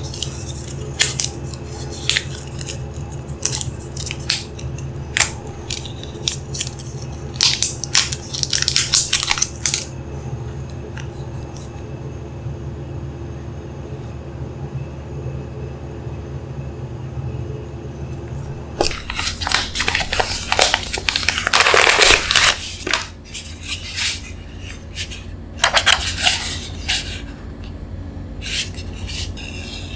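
Unboxing handling noises: scattered clicks and taps with longer stretches of rustling and crinkling packaging, the loudest about two-thirds through, over a steady low hum.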